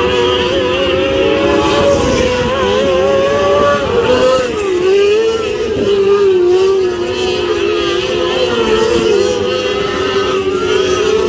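Several small winged sprint cars' engines running at high revs together during hot laps, their pitches rising and falling as the cars go around the track.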